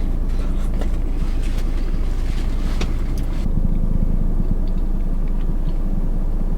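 Steady low rumble of a car's engine idling, heard from inside the cabin, with light rustling and clicks in the first half.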